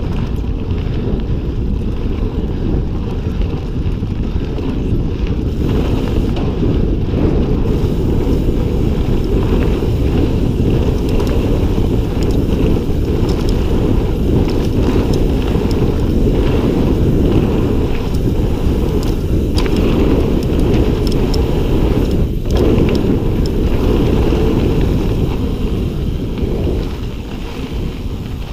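Heavy wind noise buffeting the microphone of a body-mounted camera on a fast mountain-bike descent, mixed with tyre noise on dirt and light clicks and rattles from the bike. It eases off over the last couple of seconds.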